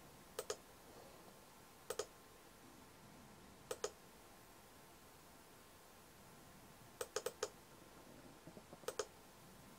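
Computer mouse button clicking, about six clicks at irregular gaps, each a quick press-and-release double tick, with a cluster of them about seven seconds in.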